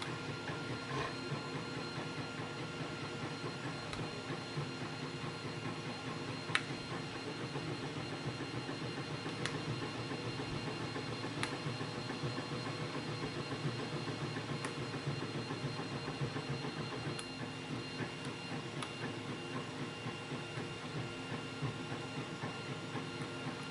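A steady mechanical hum, with about eight faint, sharp ticks spread through it from a pick and tension wrench working the pins of an Abus padlock.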